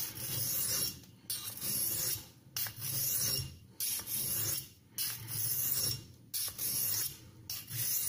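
A 12C27 stainless knife blade is stroked along an oiled Norton India Fine aluminium-oxide stone. Each pass is a rasping scrape of about a second, with short pauses between strokes, about seven strokes in all, as the edge is being established.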